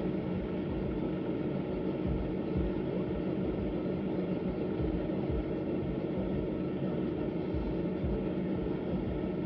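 Car heater blower running steadily inside the car's cabin, an even rushing noise with a low hum.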